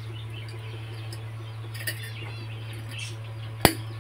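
Faint bird chirps, a few short calls about two seconds in and again near three seconds, over a steady low hum. One sharp click comes shortly before the end.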